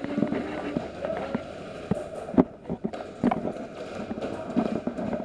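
Footsteps and gear noise of a moving airsoft player on a hard floor, with irregular sharp knocks and clicks and faint voices in the background.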